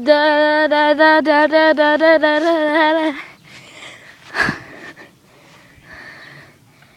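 A voice sings one steady note in fast repeated pulses for about three seconds, then stops. A single sharp knock follows about a second later.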